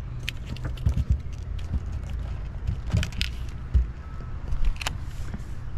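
Steady low rumble of outdoor noise, with a few light clicks and taps scattered through it.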